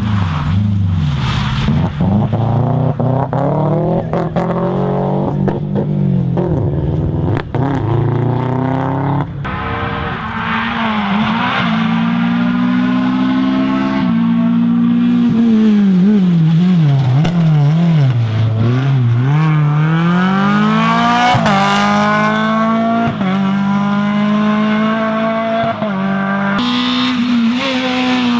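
Rally car engines at high revs, the pitch climbing and dropping through gear changes and lifts as cars pass, with sharp cracks in the first several seconds.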